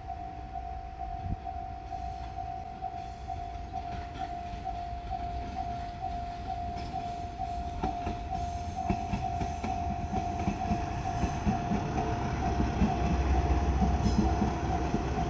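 Japanese level-crossing alarm dinging in an even, rapid repeat while a diesel railcar approaches, its engine rumble and wheel noise growing louder toward the end.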